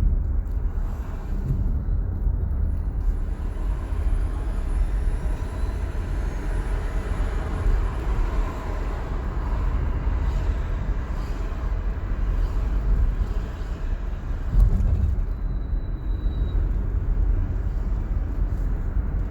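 Car driving with a window open: a steady low wind rumble against the open window, mixed with tyre and road noise.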